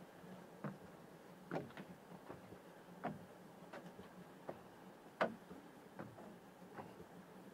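Footsteps: soft, short taps about one every three-quarters of a second, unevenly spaced, over a faint steady hum.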